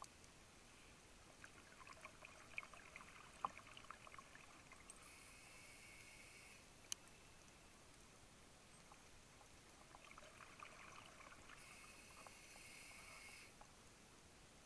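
Scuba diver breathing through a regulator underwater, twice over: a crackle of exhaled bubbles, then a short hiss of the regulator on the inhale. A couple of single sharp clicks stand out.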